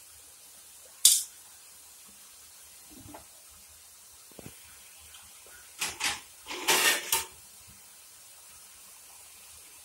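Tomato-onion masala with added water heating up in a non-stick pan over a raised flame, with a faint steady hiss. A sharp click sounds about a second in, and a quick cluster of spluttering pops comes between about six and seven seconds.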